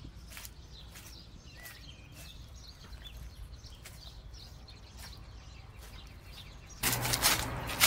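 Quiet outdoor background with scattered small clicks and a faint single chirp early on; near the end a louder run of clicks and knocks begins.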